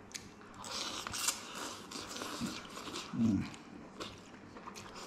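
Someone eating instant cup noodles: a slurp about half a second in, then chewing with small clicks from the fork and lips, and a brief low hum about three seconds in.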